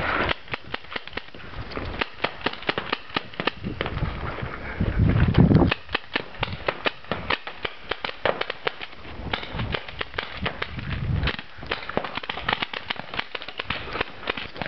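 Paintball markers firing, many sharp pops in irregular rapid strings, several a second, with a brief low rumble about five seconds in.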